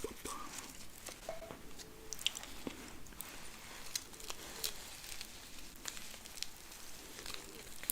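Close-miked chewing of a burger and fries with sauce: wet, squishy mouth sounds broken by many small crisp clicks and crackles.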